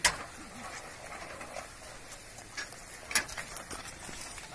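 Bullock cart drawn by two bulls moving along a dirt track: a few sharp knocks, the loudest right at the start and another about three seconds in, over a quiet background.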